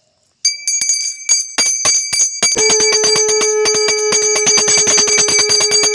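Brass puja hand bell rung rapidly, its clapper striking many times a second, starting about half a second in. From about halfway, a conch shell is blown in one long steady note alongside the bell.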